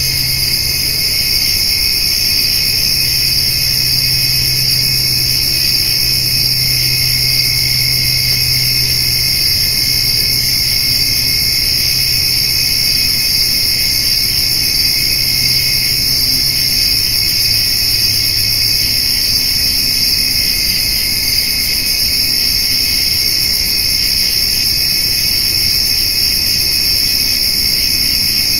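Steady evening chorus of crickets and grasshoppers, several high-pitched trills going on without a break. A low hum underneath fades out about two-thirds of the way through.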